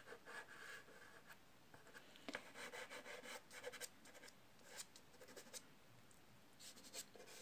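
Soft pastel stick scratching across rough Fabriano paper in a series of short, faint strokes as terracotta ochre is laid down.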